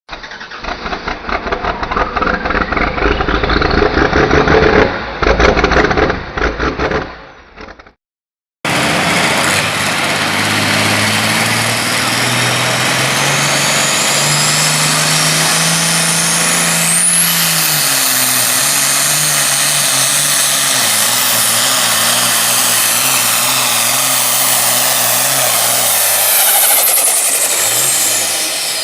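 Turbocharged diesel super farm tractor pulling under full load, running loud and steady. A turbo whistle climbs very high about halfway through, the engine note wavers, and it eases off near the end. Before this, a short duller-sounding clip of an engine revving is cut off abruptly.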